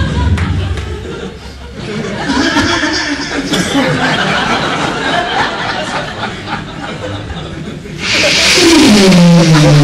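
Audience laughter and chuckling, then, about eight seconds in, a loud breathy sigh blown into the microphone with a falling groan, a mock-disappointed sigh.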